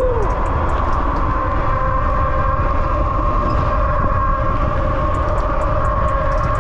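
Electric bike under way: wind rushing over the microphone and a steady whine from the motor, held at one pitch.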